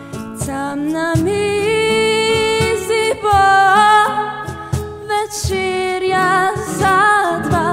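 A solo voice singing a slow melody with vibrato, accompanied by a strummed acoustic guitar.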